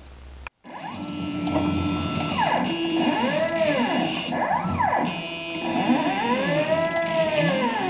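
Stepper motors of a Docado FC-1370 CNC hot-wire foam cutter driving the axes, their whine rising and falling in pitch in repeated arcs as the machine speeds up and slows down between moves. It starts after a short break about half a second in.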